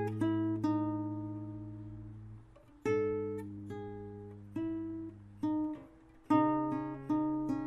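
Acoustic guitar music: plucked chords struck and left to ring out, then quicker picked notes near the end.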